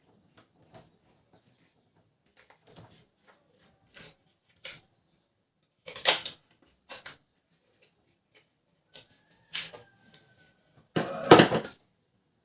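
Scattered clicks and knocks of Canon LBP 2900 laser printer parts being handled and fitted during repair, with a denser burst of rattling knocks near the end.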